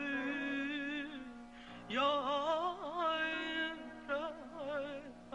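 Woman's voice singing a wordless, melismatic passage in an Azerbaijani song: held notes broken by quick trills and ornaments, in phrases with a short break just before two seconds in, over instrumental accompaniment.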